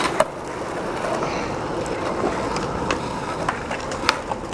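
Skateboard wheels rolling on rough concrete, a steady rolling noise, with a sharp board clack just after the start and another near the end.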